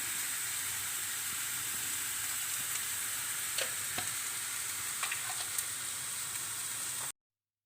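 Food sizzling steadily in a frying pan, with a few faint clicks partway through; the sound cuts off suddenly near the end.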